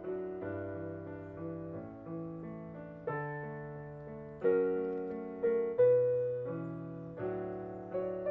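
Piano playing slow chords, each struck and left to fade, about one a second, with the loudest strokes a little past the middle.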